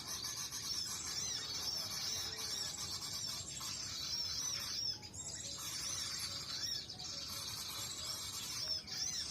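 A small bird's high-pitched call: short arching chirps repeated in quick runs, with brief gaps between runs.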